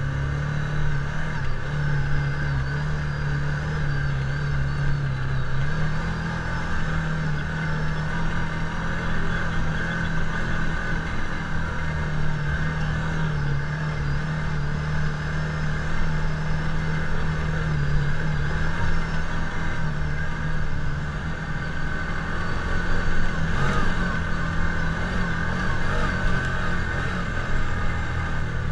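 Side-by-side UTV engine running steadily under load as the machine climbs a steep, rocky trail, its hum stepping up in pitch about six seconds in and then holding, over a rough rumble from the ride.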